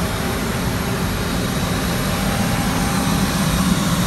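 Steady low hum and rush of air inside an airliner cabin, unchanging throughout.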